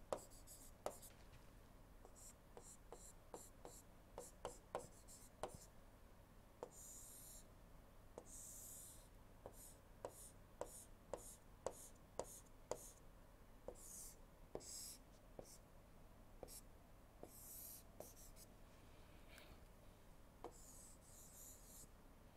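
Faint stylus taps and scratches on a tablet screen as a diagram is drawn. Sharp ticks, some in quick runs, come between brief scratchy strokes.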